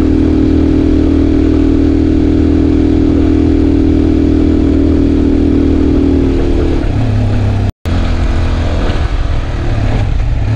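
Italika motorcycle engine running at a steady cruising speed. About two-thirds of the way through, the engine note drops lower as the bike eases off. There is a split-second gap in the sound, then a lower, more uneven engine note.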